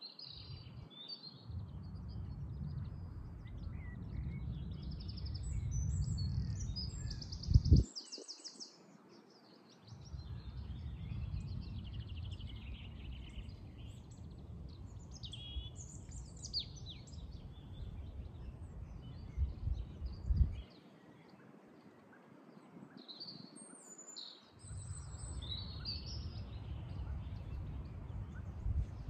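Small songbirds chirping and singing in short high phrases. Underneath is a low rumble that comes and goes in long stretches, with one sharp thump about eight seconds in.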